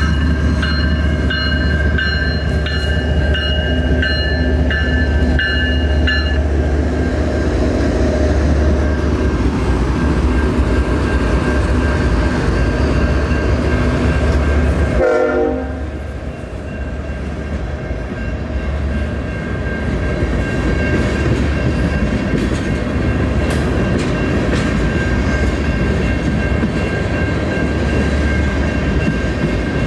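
Freight train passing a grade crossing: the crossing bell dings steadily for the first several seconds while the diesel locomotives' horn sounds. The sound breaks off abruptly about halfway through, and then the tank cars roll past with a steady rumble and wheel clatter.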